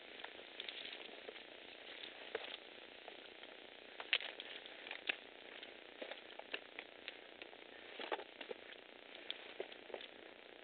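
Scrambling up a steep rocky trail: irregular crunches and sharp clicks of footsteps on loose stone and gravel, mixed with occasional metallic clinks of the trail's chain handrail, over a faint steady hiss. The loudest knocks come about four and five seconds in.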